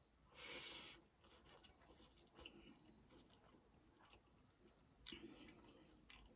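Spicy instant noodles being slurped off a fork: one loud slurp about half a second in, then chewing and several short, softer slurps. A steady high-pitched whine runs underneath.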